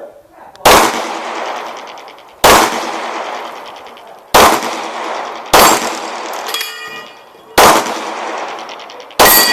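Pistol shots fired one at a time by a competitor, six in all, spaced one to two seconds apart, each followed by a long echoing tail. A brief metallic ringing follows the fourth shot.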